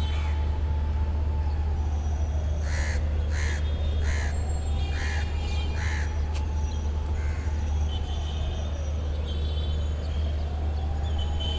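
Crows cawing, five short calls about a second apart, over a steady low city rumble, with a slow wailing tone that falls and rises twice.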